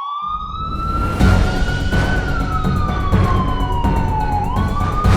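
News outro music: a siren-like tone sweeping slowly up and down over a steady drum beat, starting right as the speech stops.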